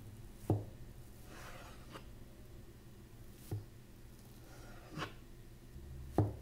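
Kitchen knife slicing through soft corn-flour dough and tapping down on the cutting board: four sharp taps at uneven intervals, with faint soft scraping between them.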